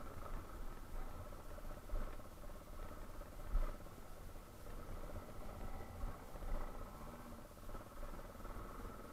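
Yamaha Serow 250 motorcycle running at low speed, a steady low rumble with a thump about three and a half seconds in.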